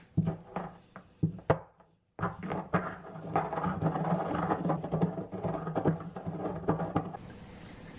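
Stone pestle grinding whole allspice berries in a stone mortar: a few sharp taps, a sudden break about two seconds in, then steady gritty scraping and crunching that eases off near the end.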